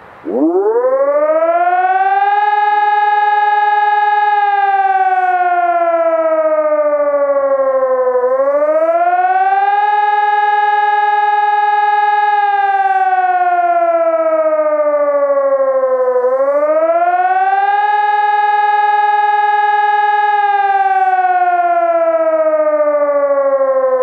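PPSS 600-C electronic civil-defence siren sounding the Austrian "Alarm" signal, which means acute danger. It starts just after the beginning, then wails in repeating cycles: the pitch climbs, holds at the top for about two seconds, then slowly falls, about every eight seconds.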